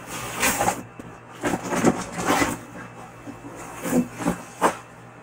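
Packaging rustling and cardboard scraping inside a cardboard shipping box as items are pulled out, in several short bursts.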